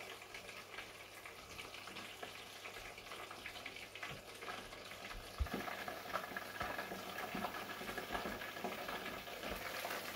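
Chicken pieces deep-frying in hot oil inside a closed electric deep fryer: a steady crackling sizzle that grows a little louder from about halfway through, with one soft knock near the middle.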